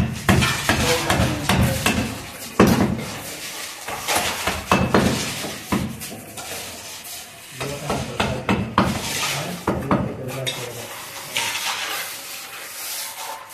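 A carpenter's hand tool working the wooden window frame: repeated scraping and knocking strokes in bouts of a second or two, with short pauses between them, easing off near the end.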